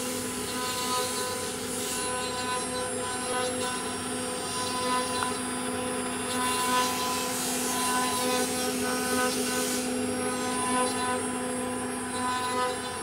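CNC router spindle running and its carving bit cutting into a wooden door panel: a steady whine with a rushing cutting noise that swells and fades as the bit moves along the carving.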